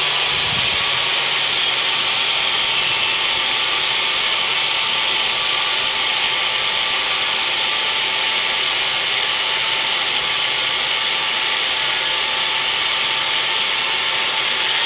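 Angle grinder grinding the steel cutting edge of a lawn mower blade, a steady whine with a hissing grind held without a break, reprofiling the front edge to take out a nick.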